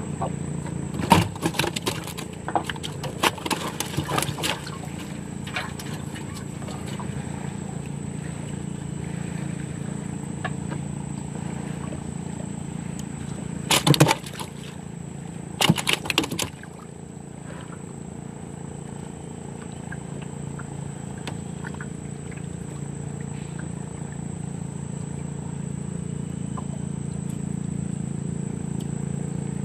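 Outdoor ambience: a steady insect drone over a low, even hum. There are scattered knocks and clatter in the first few seconds, and two short, louder noisy bursts about halfway through.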